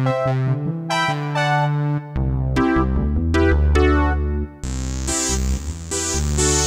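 Yamaha PSR-E323 portable keyboard playing its preset sounds: pitched notes and chords, with the sound changing to a new, bass-heavy voice about two seconds in and to another, brighter one with a high shimmer after about four and a half seconds.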